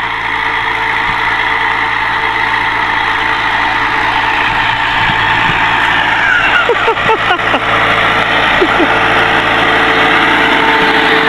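NH Dabang 85 tractor's diesel engine running steadily under load while pulling an 18-disc harrow through tilled soil.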